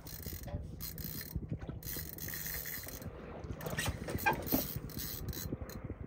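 Heavy spinning reel cranked hard under load, its gears whirring and clicking in rapid ticks as line is won back from a hooked fish on a bent rod. A steady low hum runs underneath.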